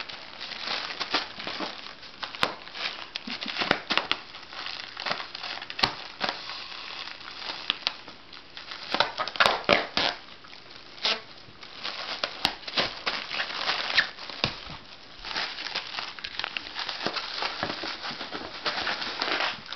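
Inflated plastic air-cushion packing pillows crinkling and crackling as a Hokkaido dog bites and paws at them, in irregular bursts with louder crackles about halfway through.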